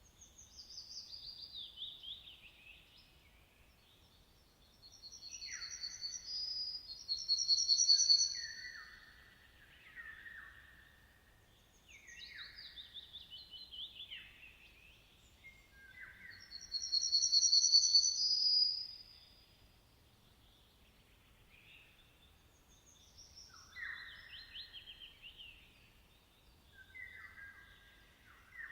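Songbirds singing in a string of separate phrases, several of them trilled and falling in pitch. A louder, high two-toned phrase comes about every ten seconds.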